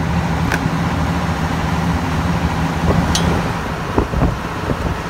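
The dive boat's machinery hums steadily at a constant level, over a wash of noise. Two short sharp sounds cut through it, about half a second and about three seconds in.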